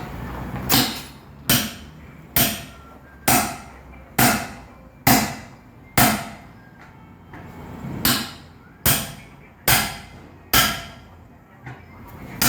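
Hammer blows during truck tire repair: about a dozen strikes, roughly one a second, each with a short ring. There is a pause of about two seconds partway through.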